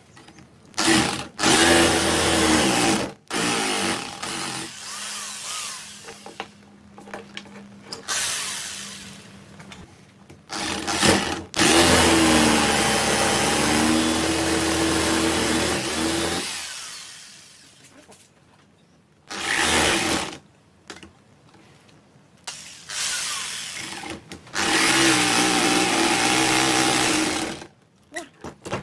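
Electric jigsaw cutting a hardwood cleaver-handle blank. It runs in about seven bursts with short pauses between them; the longest, about five seconds near the middle, winds down slowly at its end.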